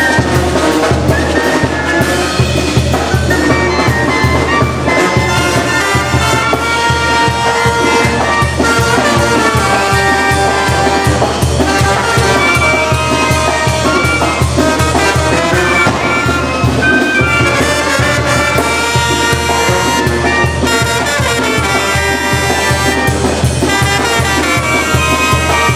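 Music led by brass instruments over a steady beat.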